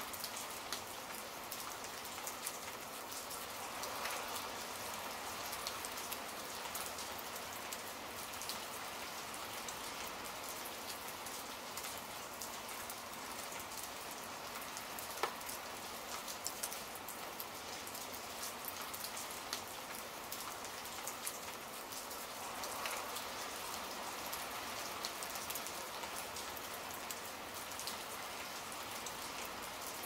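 Steady rain falling: a continuous hiss dotted with many small drop ticks.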